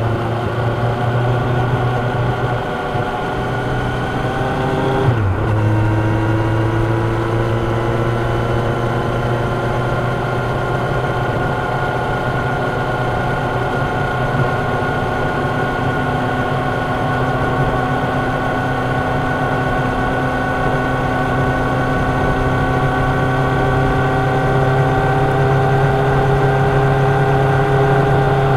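Kawasaki Ninja 1000's inline-four engine pulling steadily, its pitch climbing slowly. About five seconds in, the pitch drops sharply at an upshift, then rises gradually again through the next gear, over wind and road noise.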